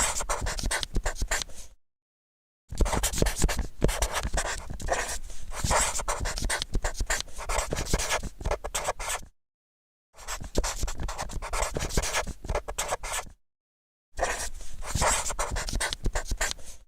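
Marker pen writing, its felt tip scratching and squeaking across a surface in four spells of strokes separated by short silent pauses. The second spell is the longest, about six and a half seconds.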